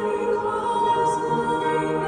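Youth choir singing, the voices holding long sustained chords.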